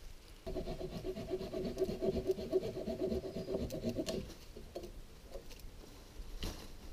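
Dead leaning tree creaking and grinding where it rubs against the trunk it rests on, a rough two-pitched creak lasting about three and a half seconds before it stops.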